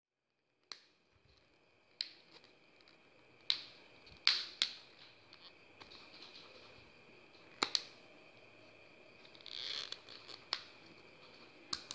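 Sharp plastic clicks and snaps, about eight at irregular intervals, as the stiff back casing of a Xiaomi Redmi 5A is pried open by fingernail, with a short rustle of handling near the end. It begins after nearly a second of silence, and a faint steady hum sits underneath.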